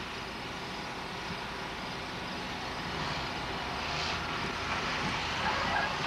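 John Deere combine harvester running steadily while harvesting soybeans, its diesel engine and threshing machinery making a continuous drone. The sound grows gradually louder as the combine comes nearer.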